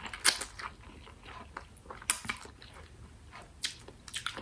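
A person eating spicy instant noodles close to the microphone: noodles drawn into the mouth, then chewing, with a few short, sharp mouth smacks, the loudest just after the start.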